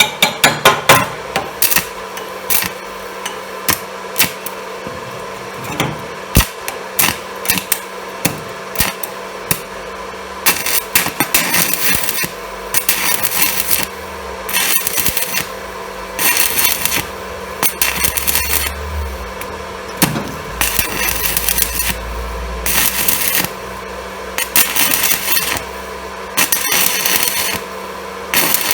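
Stick-welding arc of a UONI 13/55 basic-coated electrode on an inverter welder, struck and broken again and again (interrupted-arc welding): sharp crackles at first, then a series of crackling arc bursts about a second long, each cut off by a short pause.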